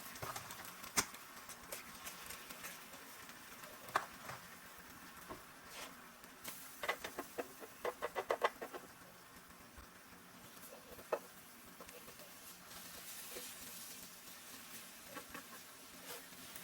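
Food sizzling on an electric ceramic griddle, a steady faint hiss. Scattered single clicks, and a quick run of light clicks about seven to eight seconds in.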